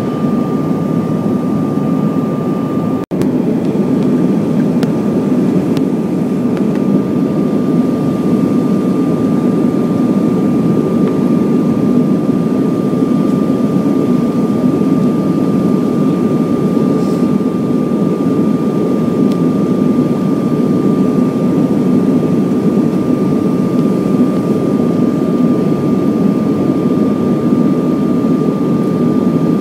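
Steady in-flight cabin noise of a Bombardier CRJ1000 jet: a dense rush of airflow and engine noise from its rear-mounted General Electric CF34 turbofans, with a thin steady whine above it. The sound breaks off for an instant about three seconds in.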